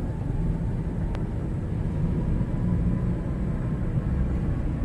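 Steady low rumble of a vehicle driving along the road, heard from inside the cabin, with a faint click about a second in.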